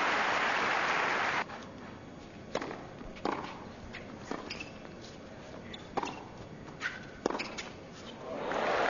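Crowd applause that cuts off about a second and a half in, then a tennis rally on a hard court: a series of sharp knocks from rackets striking the ball and the ball bouncing, spaced a second or so apart. Applause swells again near the end as the point is won.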